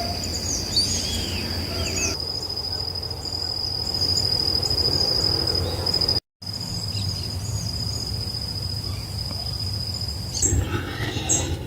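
Night insects in the bush: a steady, high-pitched cricket-like trill, with short chirping calls over it in the first two seconds. Near the end the trill stops and a few different chirps take over.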